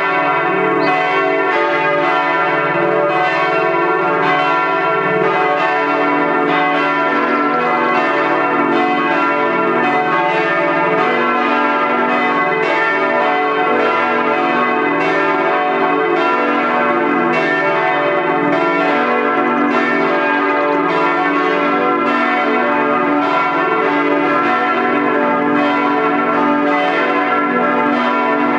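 Several bells of a German Protestant church ringing together in a full peal, their strokes overlapping into a continuous, even wash of tones.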